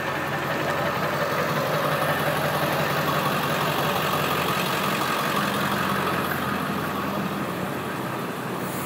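A motor vehicle's engine idling steadily close by, a constant low hum over general street noise.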